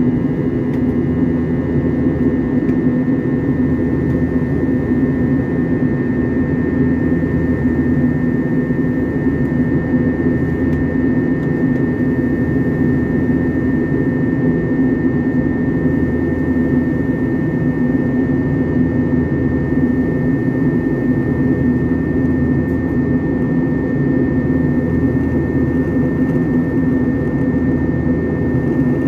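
Steady cabin noise of a jet airliner in flight: engine and airflow noise heard from inside the cabin, with a faint steady high whine over it.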